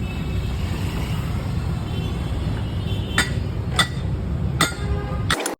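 Steady low rumble with three sharp metallic clinks in the second half, and a sudden cut-off just before the end.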